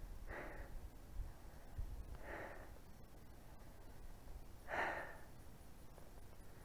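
A man breathing hard, three heavy breaths about two seconds apart: a hiker winded from a long uphill slog.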